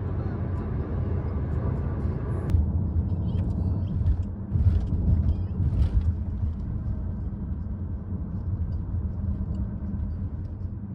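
Steady low rumble of a moving vehicle, with a few faint clicks partway through.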